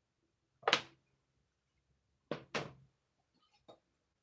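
Sharp knocks on wooden speaker-box panels: one about a second in, a close pair past the middle, and a fainter one near the end.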